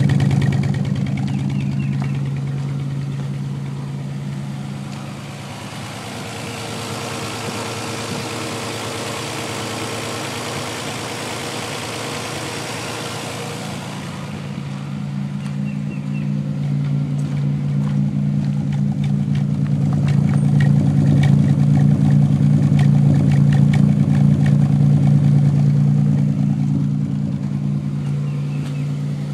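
1990 Nissan 300ZX's 3.0-litre V6 idling with a misfire on the #4 cylinder, heard as an uneven miss and sporadic popping through the driver-side exhaust; the owner suspects the #4 injector. For roughly the first half a steady hiss covers the engine note, which comes back stronger in the second half with irregular pops.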